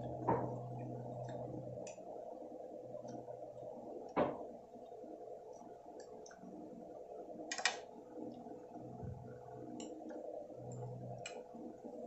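Eating sounds: chewing and mouth noises, with a few sharp clicks of cutlery or containers, over a steady background hum.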